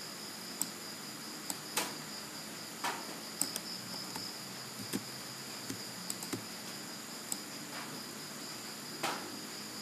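Faint computer-mouse clicks, about ten scattered irregularly over several seconds, as nodes are placed in a drawing program. A steady high-pitched tone runs underneath.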